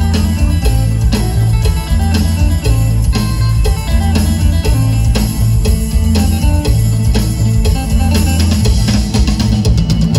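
Live band music for a lam tang wai folk song: an instrumental passage with a heavy, steady bass and drum beat under plucked lead lines.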